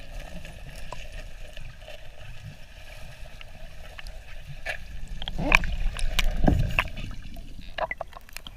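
Muffled underwater water noise through a waterproof camera housing, with scattered clicks and a louder gurgling stretch about five to seven seconds in.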